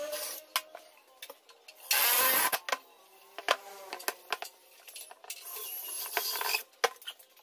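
Cordless drill driving screws into a pine frame in short runs, the loudest about two seconds in and another near six seconds, with sharp knocks and clicks of wooden pieces being handled and set on the bench between.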